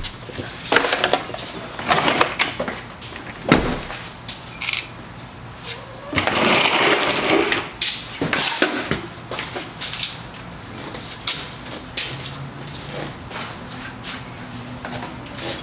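Clicks, knocks and rustling from handling things at an SUV's open rear door, with a heavy thump about three and a half seconds in as the car door is shut.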